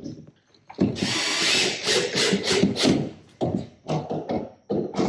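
Cordless drill driving a screw through plywood into a wooden strip. It runs for about two seconds starting about a second in, pulsing toward the end, then gives a few shorter, quieter bursts.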